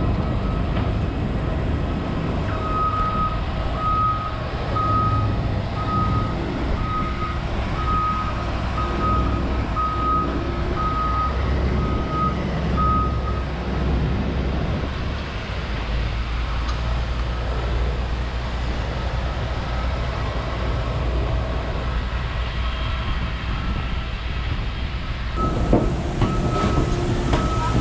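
Steady low engine rumble with a high electronic beep repeating about once a second for some ten seconds, coming back near the end: a vehicle's reversing alarm.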